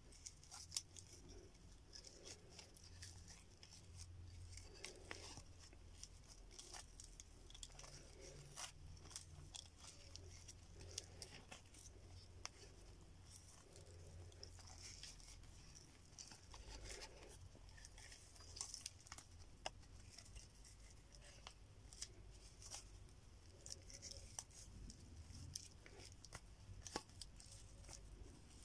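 Rough fibre cord being wound and pulled tight around a bone dagger handle by hand: faint rustling and scratching, with many small clicks.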